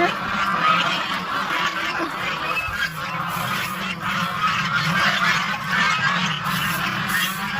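A large flock of domestic geese honking and calling continuously, many overlapping calls at once.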